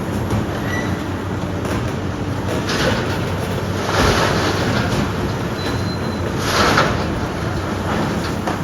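Heavy demolition machinery at work: a steady low diesel engine rumble, with three louder noisy surges about three, four and six and a half seconds in.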